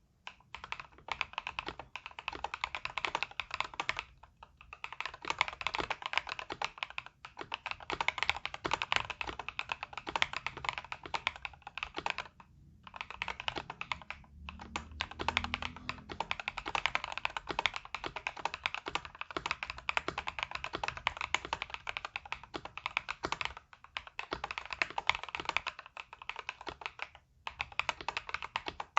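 Fast typing on a KBDfans KBD67 Lite mechanical keyboard with lubed Durock POM linear switches and PBT keycaps: a dense run of keystrokes in spells of several seconds, broken by brief pauses.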